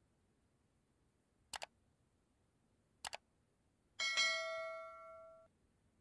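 Subscribe-button sound effect. A mouse double-clicks twice, about a second and a half apart. Then a notification bell chime rings for about a second and a half and cuts off abruptly.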